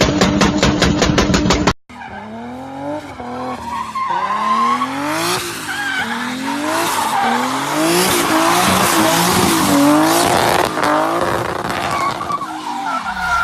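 A car engine pulsing fast and evenly, cut off abruptly; then a car engine revved up and down again and again, with tyres squealing and a hiss of spinning rubber as in a burnout.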